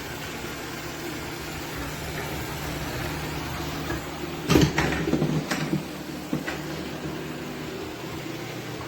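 A steady machine hum, with a short cluster of knocks and clatter about halfway through and a couple of fainter clicks after.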